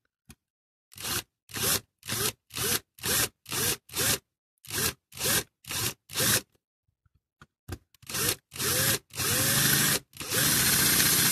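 Small electric drill run in short trigger bursts, about two a second, its motor pitch rising and falling with each burst, then two longer runs near the end: drilling into the diecast metal of a Dinky toy to free its parts.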